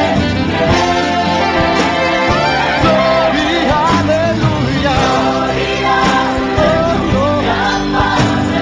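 Music: a sung Christian worship song with instrumental accompaniment.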